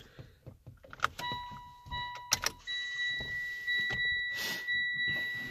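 Ignition key turned to on in a Mitsubishi Lancer Evolution X: a few clicks from the switch and relays, then the car's electronic warning chime sounding a high steady tone that breaks briefly about once a second. A short rustle comes near the end.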